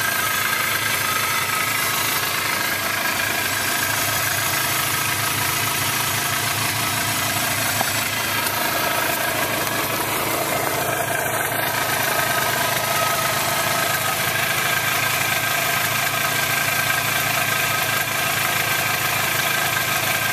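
Polaris Trail Boss 250's single-cylinder two-stroke engine idling steadily after a cold start.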